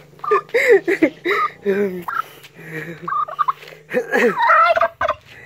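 Domestic tom turkey gobbling again and again in quick, rattling bursts, densest about four seconds in. The bird is agitated and in the middle of chasing people off.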